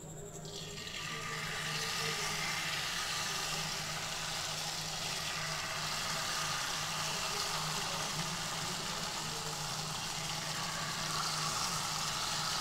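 Jalebi batter sizzling as it is piped in spirals into hot vegetable oil in a kadai. The sizzle builds over the first second or two, then holds steady over a low steady hum.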